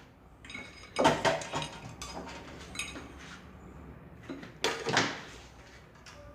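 Knocks and scraping of a modified PC ATX power supply and its wires being picked up and set down on a bench, with a sharp knock about a second in and another just before five seconds.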